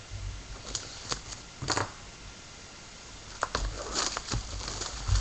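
A trading-card hobby box and its plastic wrap being handled and opened, with scattered clicks, taps and crinkling that are busiest about two-thirds of the way through.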